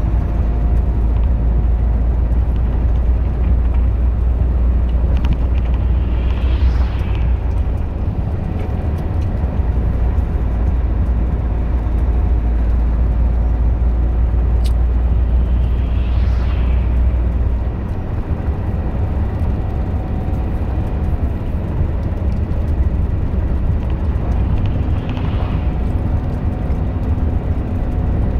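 Cab-interior drone of a Volvo FH13 500 truck's inline-six diesel under way, a deep steady rumble mixed with tyre and road noise on snow. The low rumble eases about two-thirds of the way through, and a brief whooshing swell comes back roughly every nine to ten seconds.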